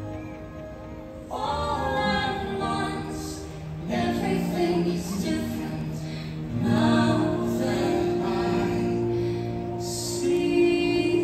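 Orchestral show music with a woman singing over sustained chords, building in swells about a second in, again around four seconds and near seven seconds.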